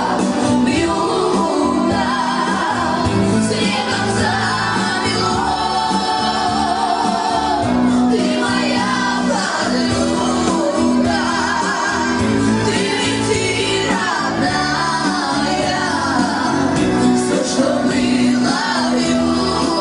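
Romani song sung over instrumental accompaniment, the voice line rising and falling over held low notes.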